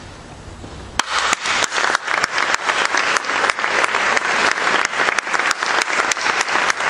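Audience applauding in a church. The clapping breaks out suddenly about a second in and stays dense and steady.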